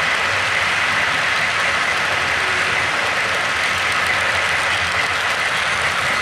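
Model freight cars rolling past on model railroad track: a steady, even rolling noise with a faint high whine.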